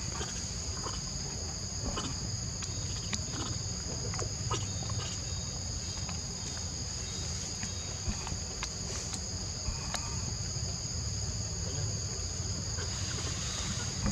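Steady high-pitched insect chorus holding two even tones, over a low background rumble and a few faint clicks.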